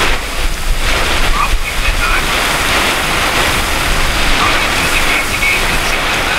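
Strong wind driving heavy rain, a loud steady rushing with wind buffeting the microphone: the winds of a rain-wrapped tornado passing close by.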